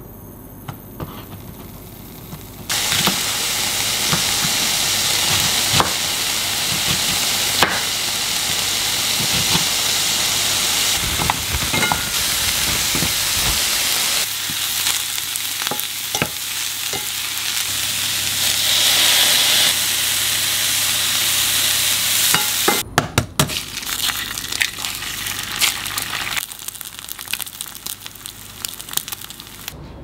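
Bacon, cabbage and broccoli sizzling as they stir-fry in a pan, stirred with a wooden spatula, with small clicks of the spatula against the pan. The sizzle starts suddenly about three seconds in and cuts off after about twenty seconds, leaving quieter scattered clicks and knocks.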